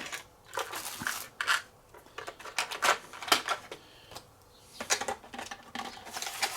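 Plastic and foam packaging rustling and crinkling in irregular bursts, with light knocks, as a model locomotive is lifted out of its box.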